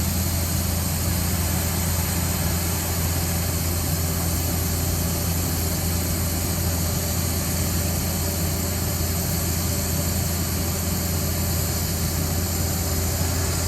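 Combine harvester's diesel engine running at a steady, unchanging drone, with a constant hiss over it.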